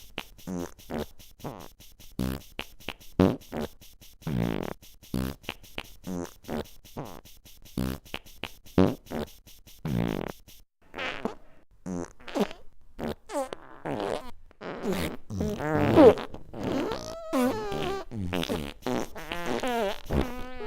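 Fart sounds in quick succession: a rapid run of short blasts, several a second, then after a brief pause about halfway, longer drawn-out farts whose pitch wobbles up and down.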